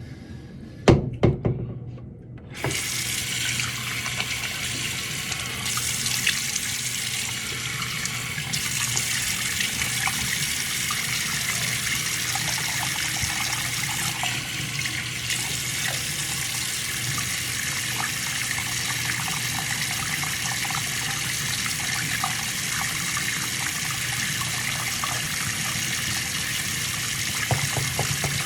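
A few sharp knocks about a second in, then a tap running steadily into a sink.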